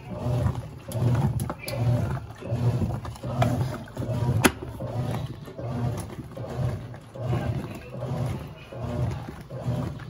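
Brastemp Total 9 kg top-loading washing machine agitating a soapy load: the motor and agitator churn the water in even strokes, about one every 0.8 seconds, set by its aftermarket CP control board. A single sharp click comes about four and a half seconds in.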